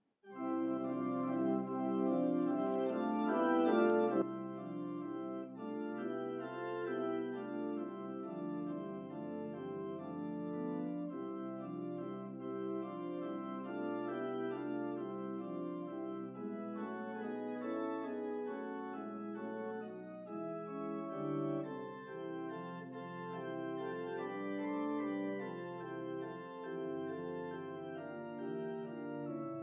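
Church organ playing slow sustained chords over held pedal bass notes. It comes in abruptly at the start and is fullest for the first few seconds.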